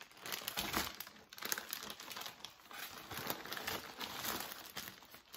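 Clear plastic costume packaging crinkling and rustling as it is handled, in irregular crackles.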